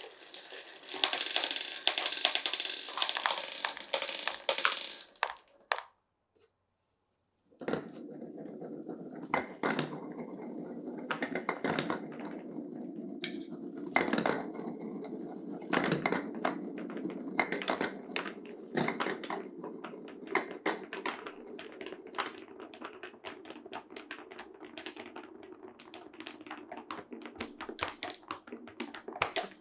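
Glass marbles rolling and clattering through a wooden marble run: a dense run of quick clicks and clacks, with the sound cutting out completely for about a second and a half around six seconds in. It then resumes as a steady rolling rumble with sharp knocks on top.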